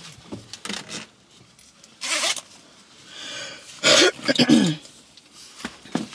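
A woman coughing twice, a short rough cough about two seconds in and a louder, voiced cough around four seconds in. Small rustles and clicks from a mesh safety vest being pulled on come before and after.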